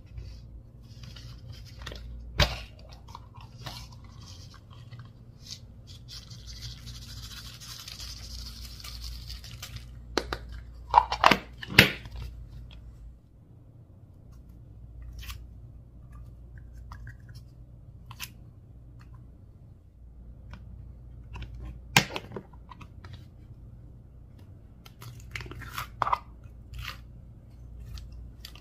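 Hands squishing and kneading colourful slime filled with mini balls, giving scattered small clicks and crackles. A few sharp pops stand out, the loudest a pair about halfway through.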